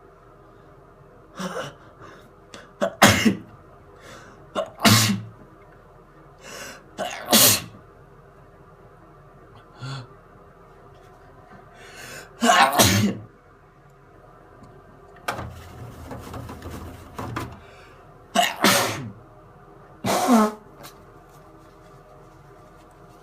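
A person sneezing again and again: a string of about six loud sneezes with smaller ones between, a few seconds apart, over a steady background hum.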